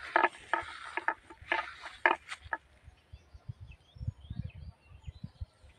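Footsteps rustling through dry grass for about the first two and a half seconds, then faint high bird chirps over low thumping on the microphone.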